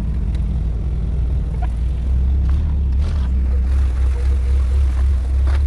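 A car's engine running steadily with a deep, low drone as it drives off-road over muddy ground.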